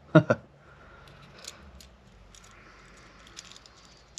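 Faint, scattered small clicks and light scraping from handling the opened Mitutoyo lever dial test indicator's tiny metal mechanism by hand. A brief vocal sound comes right at the start.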